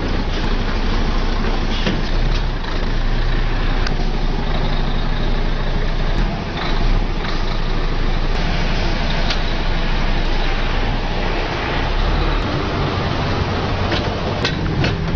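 Heavy logging truck's diesel engine running steadily under load as the rig creeps through a tight turn, with a few scattered clicks and knocks.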